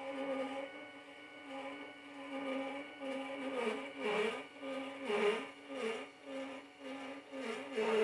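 Celestron CPC Deluxe fork mount slewing in azimuth at maximum speed: a steady motor whine with a loud grinding that surges and dips in pitch about once a second, growing stronger from about three seconds in. It is loud grinding that sounds like it is trying to tear itself apart, and it occurs only at the top slew speed.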